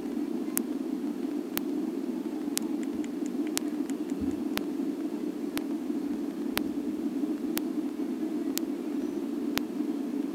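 Steady noise with a sharp tick about once a second, evenly spaced. No firework bangs are heard.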